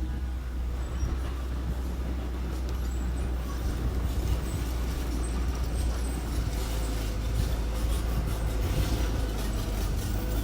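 Construction machinery engine running steadily with a low drone and a rattling clatter over it, getting a little louder about four seconds in.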